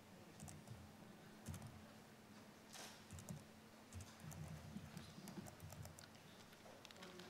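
Faint, irregular clicking and tapping of a laptop keyboard and mouse.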